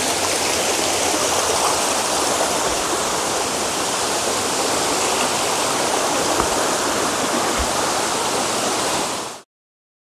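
Shallow mountain stream splashing and rushing over rocks and pebbles, a steady sound of running water. It cuts off abruptly about nine seconds in.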